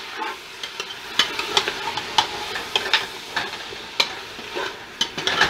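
Beef chunks sizzling in hot oil in an aluminium pressure cooker as they are browned, while a metal spoon stirs them, scraping and clicking against the pot at irregular moments.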